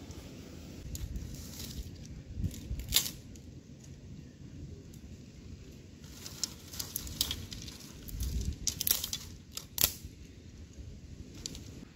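Thin dry sticks being handled and stood up against each other on leaf litter: scattered light clicks and knocks of stick on stick, with rustling.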